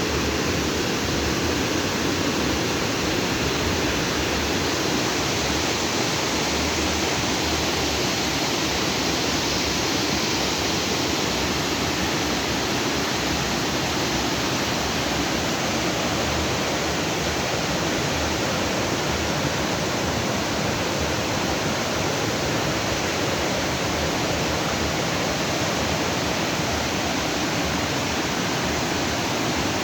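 Stream water flowing fast over and between rocks, a steady unbroken rushing that holds even throughout.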